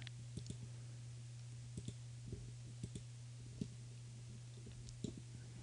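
Scattered clicks of a computer mouse, a dozen or so at uneven intervals, some in quick pairs, over a low steady hum.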